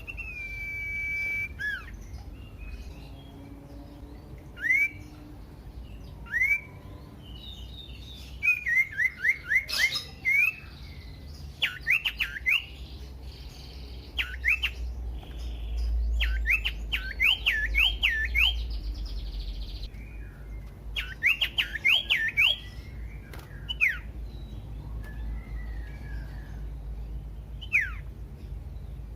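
Common iora singing: a long held whistle, then short rising whistled notes and runs of rapid up-and-down phrases, with pauses between them.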